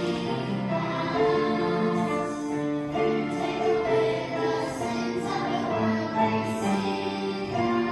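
A hymn sung by a choir of voices with instrumental accompaniment, the notes held in a slow, steady line.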